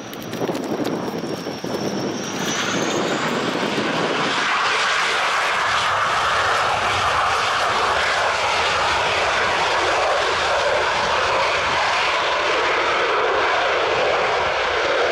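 Panavia Tornado jet's twin RB199 engines at high power on the runway. A high turbine whine dips and rises, then from about four seconds in gives way to a loud, steady roar.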